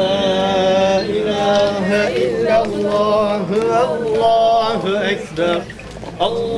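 A man's voice chanting or singing slowly, holding long, ornamented notes that waver and glide, with short breaths between phrases.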